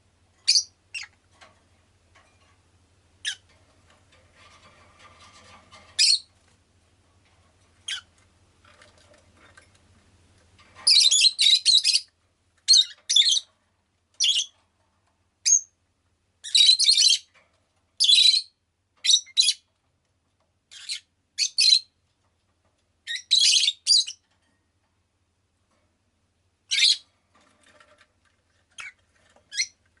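Rosy-faced lovebird giving short, sharp, high-pitched chirps and squawks: a few single calls at first, then quick rapid-fire runs of calls through the middle, and a few single calls again near the end.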